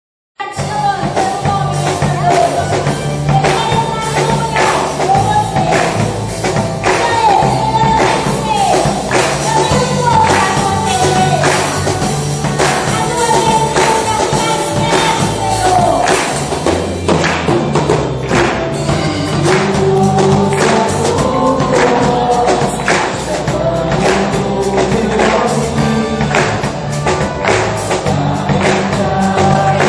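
Live gospel worship music with singing, tambourine and a steady beat, starting about half a second in after a brief silence.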